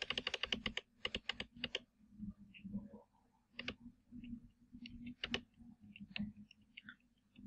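Computer keyboard keys tapped in a quick run of about ten presses a second, then scattered single clicks: repeated key presses deleting text. A faint low hum runs underneath.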